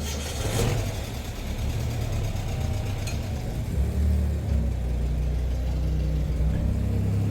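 Vehicle engine running with a low, steady hum that rises in pitch about four seconds in and again near the end.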